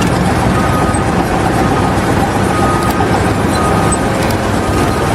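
Steady, loud running of heavy machinery or an engine.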